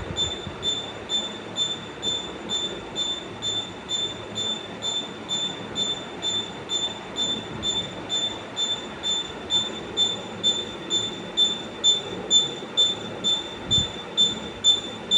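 A rotating device squeaking rhythmically: a high-pitched squeak repeating about two to three times a second, with a low rumble underneath.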